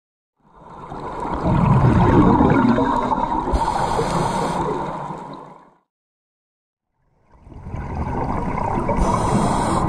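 Muffled underwater sound of a camera in a housing: a rushing, gurgling wash with a low rumble and the bubbling of scuba divers' exhaled air. It comes in two stretches that each fade in, split by about a second and a half of silence a little past halfway.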